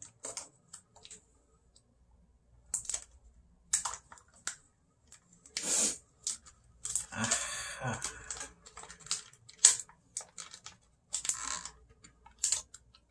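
Irregular handling noises of small objects being moved and fiddled with on a desk: scattered clicks, taps and rustles, with a longer scraping rustle about seven seconds in.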